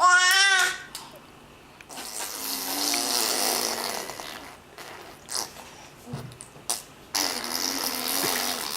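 A person making silly noises with the voice and mouth: a short, loud, wavering squeal at the start, then two long breathy, buzzing noises with a low hum under them.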